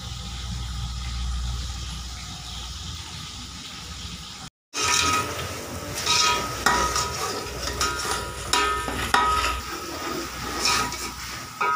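Peas and chopped tomato frying in oil in an aluminium pot, sizzling, as a metal spoon stirs and scrapes the pot with repeated clinks and brief ringing. Before this, for the first four and a half seconds, there is only a low rumble with a faint hiss, then a short break.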